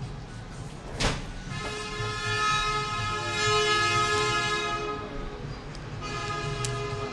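A sharp click about a second in, then a steady horn-like tone with many overtones, held for about three and a half seconds before fading; a quieter tone of the same kind returns near the end.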